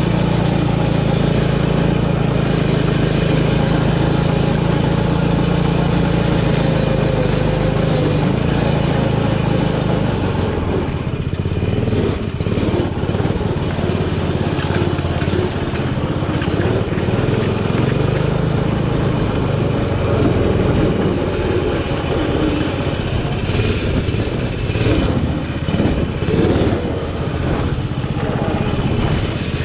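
Arctic Cat 120 youth snowmobile engine running at a steady speed for about the first ten seconds, then rising and falling unevenly as the sled is ridden. A few short knocks come near the end.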